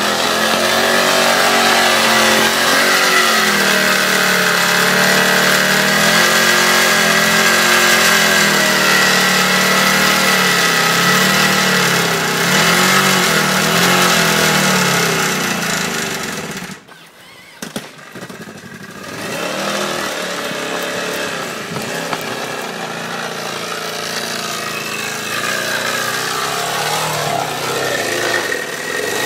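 Motorcycle engine running and revving, its pitch wavering up and down. About seventeen seconds in the sound drops away sharply, then the engine is heard again a couple of seconds later, running more steadily.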